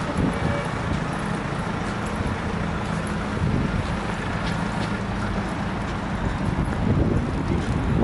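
Street traffic: a car engine running nearby, with a steady low hum under the noise of the road.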